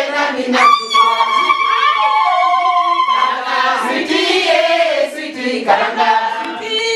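A group of people singing together in Swahili, unaccompanied, with one voice holding a long high note about a second in.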